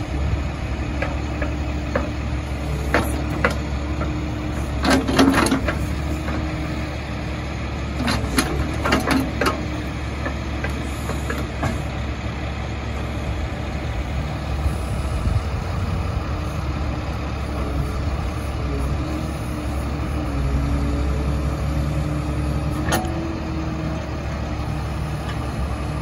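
Truck-mounted Bradco 509 backhoe digging, its engine running steadily to drive the hydraulics. Sharp metal clanks and knocks break through the engine sound, clustered about five seconds in and again around eight to nine and a half seconds in, with a single one near the end.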